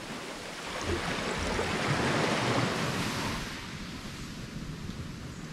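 Small waves washing up onto a sandy beach: an even rush of surf that swells about two seconds in and then eases off.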